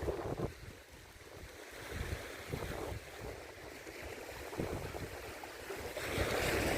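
Surf washing on the beach, with wind gusting on the microphone; a wave swells louder near the end.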